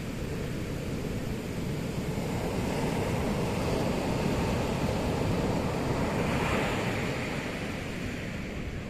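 Atlantic Ocean surf breaking and washing up a sandy beach as a steady rush of water. It swells in the middle as a wave runs up the sand and eases off near the end.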